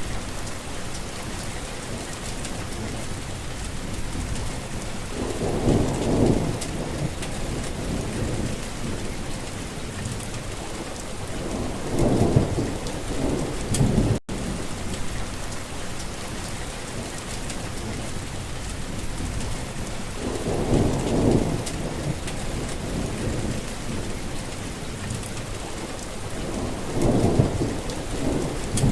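Steady rain falling, with four low rolls of thunder rumbling up out of it at intervals. The sound cuts out for an instant about halfway through.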